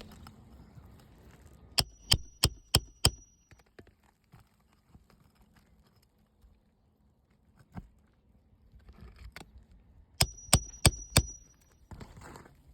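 Hammer striking metal in two runs of five quick blows about a third of a second apart, each with a high ringing note, the first run about two seconds in and the second near the end. The blows are part of working the nails out of an asphalt roof shingle.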